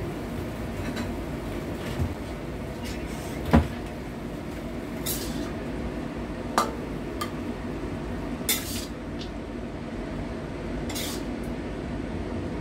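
A spatula stirring and tossing chicken wings and long beans in a stainless steel wok, with scattered knocks and short scrapes against the pan, the loudest knock about three and a half seconds in. A steady low hum runs underneath.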